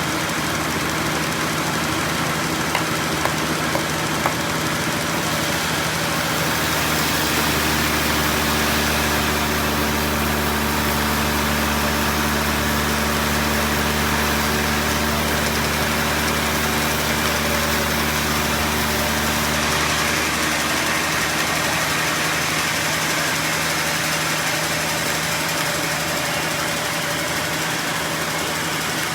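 An engine-driven sawmill runs steadily while ripping a trembesi (rain tree) log. From about six seconds in, the engine note deepens and a high hiss thickens as the saw works under load through the wood. After about twenty seconds both ease back to a lighter run.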